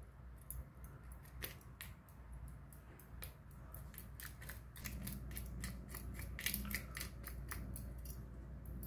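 Thin metal pick scraping and clicking against a cooked American (Boston) lobster's shell as the meat is dug out: a run of small quick clicks and scrapes, few at first and coming thick and fast in the second half.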